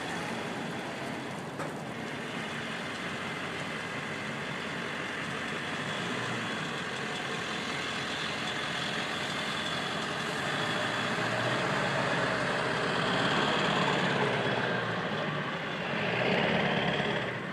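Engine of a van built into a combined RV and speedboat, running steadily at low speed while it reverses down a boat ramp into the water, growing somewhat louder about two-thirds of the way through and again near the end.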